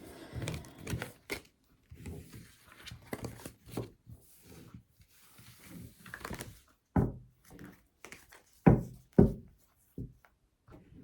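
Soft handling noises with a few short thumps, the loudest about seven, eight and a half and nine seconds in.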